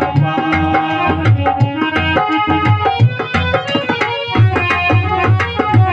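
Instrumental interlude of a devotional bhajan: a harmonium playing a held melody over a steady hand-drum rhythm.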